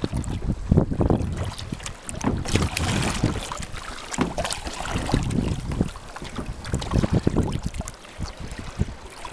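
Strong wind buffeting the microphone in uneven gusts, with water splashing and slapping against the hull of a canoe under sail.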